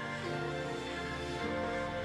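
Background music: a melodic track with sustained chords that change about every second.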